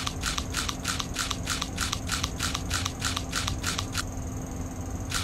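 Sound loop from a donut-eating face-filter game: short crisp strokes in an even rhythm, about four a second, over a low steady hum, with a brief pause near the end before the strokes resume.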